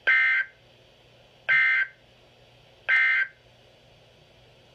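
Emergency Alert System SAME data bursts: three short, buzzy two-tone digital bursts about a second and a half apart. This is the End of Message code that closes the alert.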